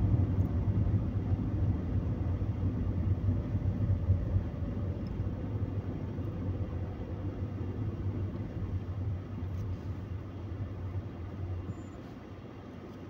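Car engine and road noise heard from inside the cabin while driving: a steady low hum that grows quieter over the last few seconds.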